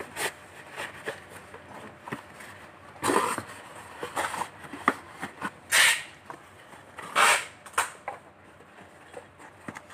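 Cardboard packaging being handled: white cardboard inserts slid and scraped against a cardboard box, giving several short rustling scrapes, the loudest a little past the middle, with small taps and knocks between them.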